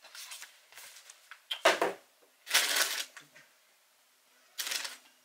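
Cardboard sneaker box and lid being handled: short rustling and scraping bursts, with a sharp knock a little under two seconds in.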